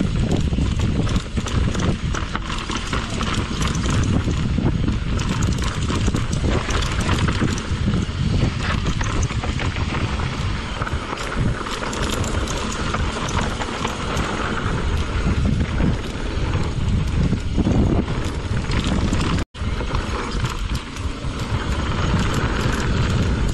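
Mountain bike descending a rough trail: steady wind rush on the microphone mixed with the continuous clatter and knocking of the bike over rocks and roots. The sound cuts out for an instant about three-quarters of the way through.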